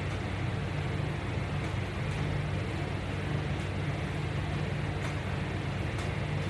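Steady low hum with an even hiss of background room noise, unchanging throughout, with a few very faint ticks.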